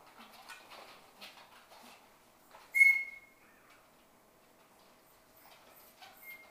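A Shetland sheepdog puppy gives one short, high whine about three seconds in, and starts another faint one near the end, over light scuffling of puppies moving about.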